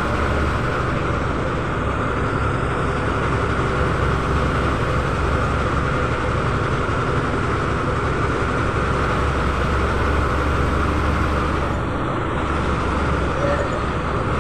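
Steady drone of a bus's engine and road noise, heard from inside the front of the moving bus.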